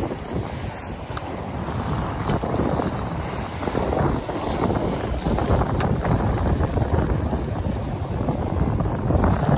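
Sea waves washing and breaking over shoreline rocks, swelling and easing, with wind buffeting the microphone.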